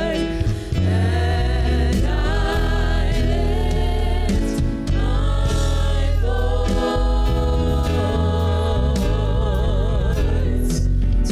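Gospel worship music: a group of women singers holding long notes with vibrato over instrumental accompaniment with a steady, strong bass.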